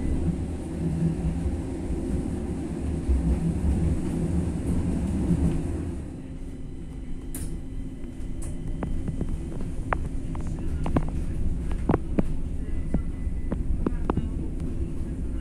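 Stadler Citylink tram-train riding, heard from inside the car: a steady low rumble with motor hum. About six seconds in, the rumble eases, and a series of sharp clicks and knocks follows.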